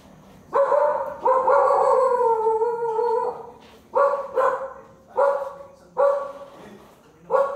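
A dog barking and howling: one short call, then a long howl of about two seconds that falls slightly, then five short separate barks.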